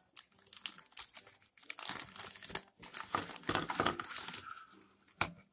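Clear plastic zip-top bag crinkling and rustling in irregular crackles as hands pull it open and reach inside.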